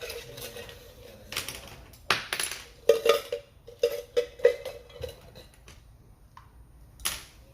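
Irregular clinks and clatter of small hard objects being handled, a dozen or so sharp knocks with a short metallic ring, bunched in the middle and one more near the end.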